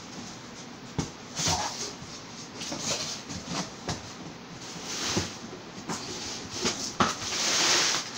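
Packaging being handled during an unboxing: irregular knocks and crinkling rustles of cardboard and wrapping, with a louder, longer rustle near the end.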